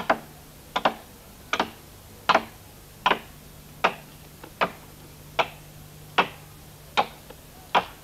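Axe blows chopping into a log to hollow it out: a steady rhythm of sharp knocks, a little more than one a second, some landing as quick double knocks from two men working at once.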